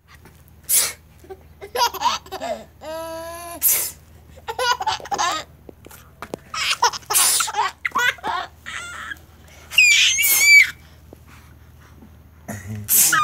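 An older child sneezing several times, about every three seconds, with a baby laughing and squealing between the sneezes.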